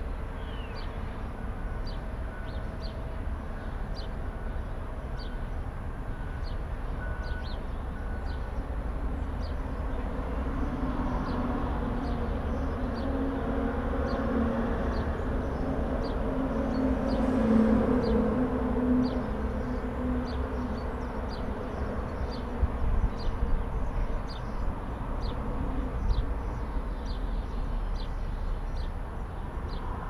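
Distant heavy-vehicle and machinery rumble, with a truck's engine swelling to its loudest about halfway through and then fading away. Short high chirps repeat about once a second over the rumble.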